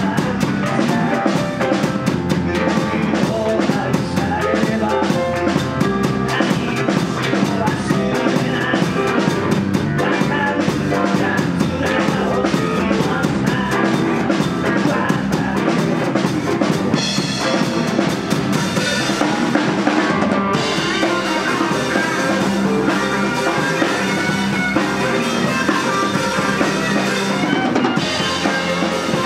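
Live rock band playing, with electric guitars over a full drum kit of snare and bass drum.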